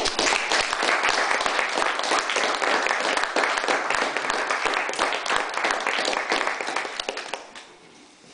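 Audience clapping, starting at once and dying away near the end.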